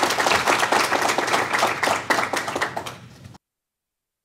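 Audience applauding, the clapping thinning out and fading over about three seconds, then the sound cuts off completely.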